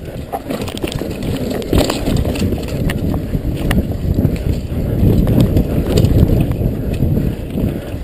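Mountain bike descending a dirt trail at speed: wind buffeting the chest-mounted camera's microphone and the tyres rumbling over the ground, with scattered sharp rattles and knocks from the bike on rough terrain. It grows louder around the middle.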